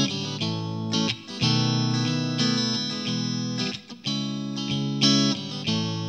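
Instrumental intro of a country song: strummed and picked guitar chords with a band behind them, no singing yet.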